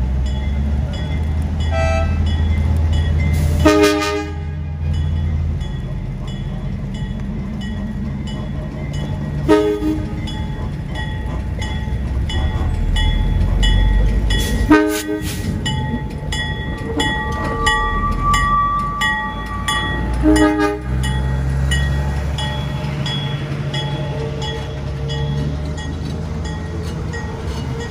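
Diesel work locomotive hauling a train of subway cars at walking pace, its engine rumbling steadily, with four short horn toots spread several seconds apart. A high steady squeal from the wheels comes in for a couple of seconds past the middle.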